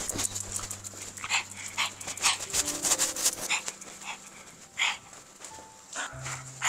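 Shih Tzu snorting and sniffing through its short nose: quick runs of short breathy puffs, then a few separate, louder snorts in the second half.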